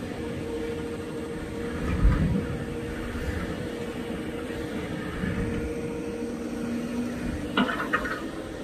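Crawler excavator's diesel engine running steadily while it works, with short louder noises about two seconds in and again near the end.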